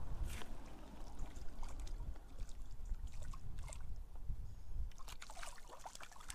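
Shallow stream water splashing and sloshing in short bursts as a small hooked trout is drawn in and reached for by hand, over a low steady rumble.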